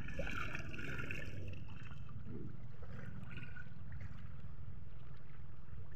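Shallow seawater lapping and gurgling around shoreline rocks, over a steady low rumble.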